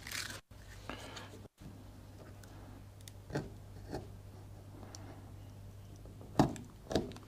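Faint scratching and small clicks of fingers picking at the tape on a spliced electrical cable, over a steady low hum, with two sharper clicks near the end.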